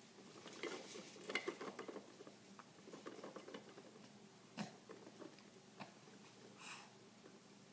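Faint plastic clicking and rattling from a baby's bouncer as the baby bounces in it, toys on the tray jiggling, with one sharper knock about halfway through.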